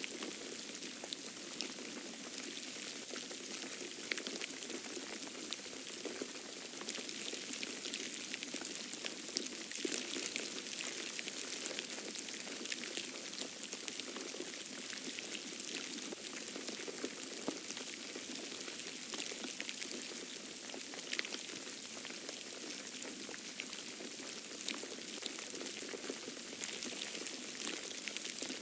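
Falling snow making a dense, steady patter of fine ticks as it lands on the ground and surfaces.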